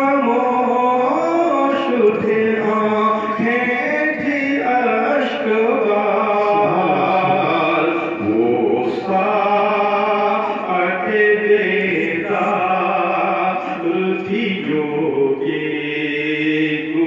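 A man's voice chanting devotional Urdu verse (a naat) in a slow melody, drawing out long held notes.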